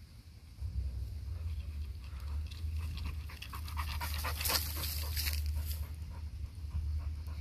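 Staffordshire bully dog panting close by, tired from a workout: quick, rhythmic rasping breaths, loudest about halfway through, over a steady low rumble.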